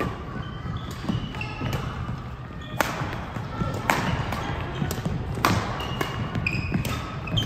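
Badminton rally: rackets strike the shuttlecock with sharp cracks about once a second, echoing in the sports hall. Short squeaks of shoes on the court floor come between the strokes.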